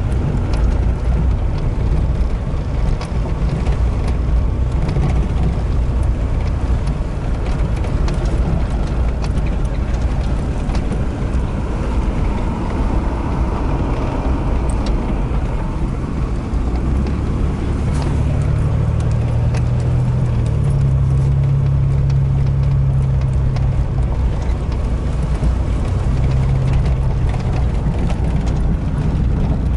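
Pickup truck driving slowly on a rough dirt road, heard from inside the cab: a steady engine and tyre rumble with light rattles. A little past the middle the engine note rises and holds higher.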